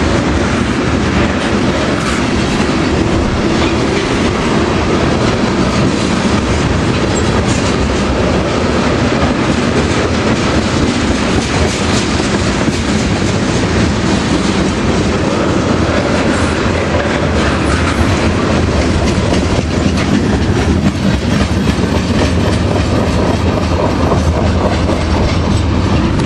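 Freight train of tank cars rolling past close by: a loud, steady rumble of steel wheels with a continuous clickety-clack on the rails.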